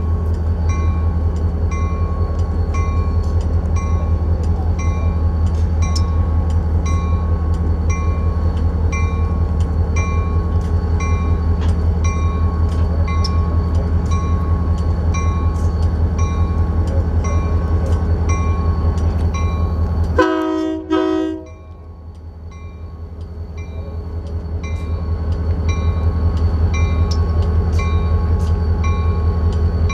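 Union Pacific diesel locomotive moving slowly, its engine a steady low rumble with the bell ringing about once a second. About two-thirds through, a short horn blast as the sound drops away; the bell and engine then fade back in.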